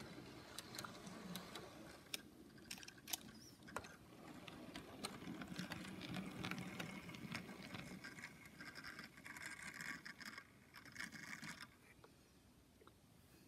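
HO scale model train running on its track: a low rumble of wheels and motor with scattered small clicks. It grows louder about five seconds in and drops off sharply about twelve seconds in.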